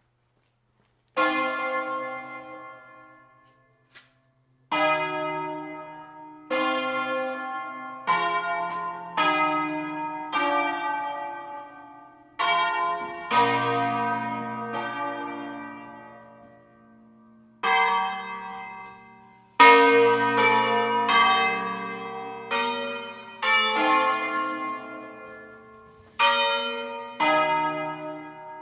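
Eight-bell church ring in B-flat, cast by Fratelli Barigozzi of Milan in 1894, playing a solemn 'concerto': single bell strokes of different pitches, one or two at a time, each left to ring and fade. The strokes come at an uneven pace, about twenty in all, after a near-silent second at the start.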